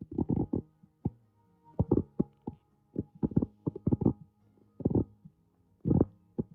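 Background music with heavy low beats in irregular clusters over faint sustained tones.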